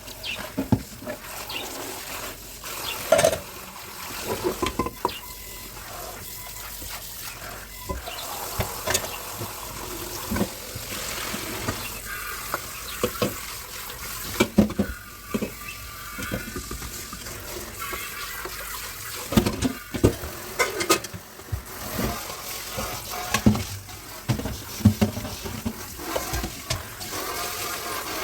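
Water running from a tap into a kitchen sink while dishes are washed, with frequent irregular clinks and knocks as the dishes are handled.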